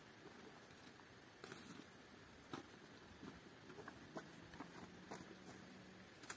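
Faint footsteps on dry fallen leaves, with a few scattered light rustles and crackles at irregular intervals.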